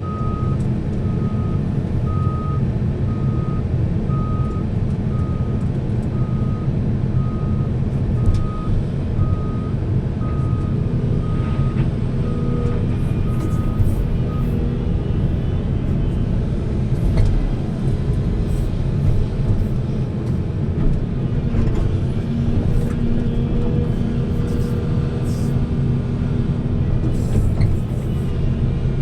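Heavy diesel machinery running loud and steady, with a reversing alarm beeping about once a second through roughly the first half before it stops.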